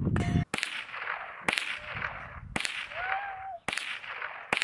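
Handgun firing about five shots, roughly one a second, each sharp crack trailing off in a short echo.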